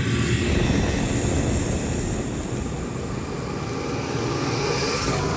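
Electronic music: a noisy, engine-like synth drone over a rumbling low end, with a hiss that sweeps upward near the end.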